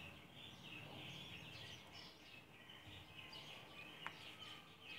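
Near silence: faint scratching of a pen writing on paper over low background noise, with a couple of faint, short high chirps.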